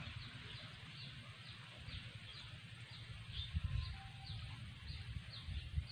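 Rhythmic high chirping from an unseen small animal: about two quick, falling chirps a second, evenly spaced. Uneven low rumbling on the microphone runs underneath.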